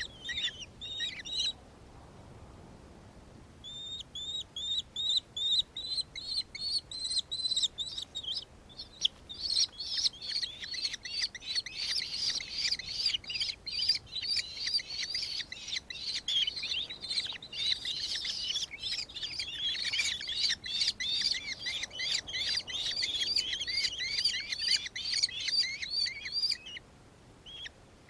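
Nankeen kestrel giving its shrill, rapidly repeated chattering call, in runs of about three to four notes a second. After a short pause it resumes, and from about a third of the way in it becomes a dense, louder chatter that stops shortly before the end.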